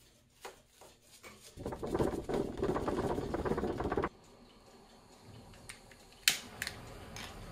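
A couple of seconds of rattling, scraping handling noise that stops abruptly, then a handheld butane torch clicks alight about six seconds in and its flame hisses steadily on a metal part held in a vise.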